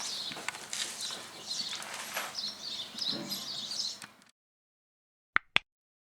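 Outdoor background with birds chirping. It cuts off abruptly about four seconds in, leaving silence. Near the end come two quick, sharp clicks in close succession.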